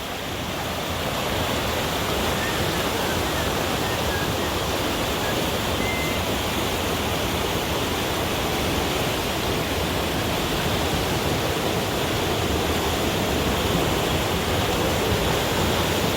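Floodwater from snowmelt rushing down a swollen creek, a steady roar of fast water with no breaks.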